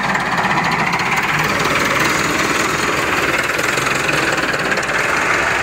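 Diesel tractor engine running steadily and loudly close up.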